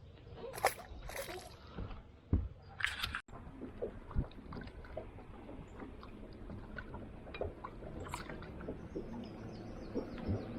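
A few short splashes of water in the first three seconds, followed by many small clicks and knocks over a low steady background.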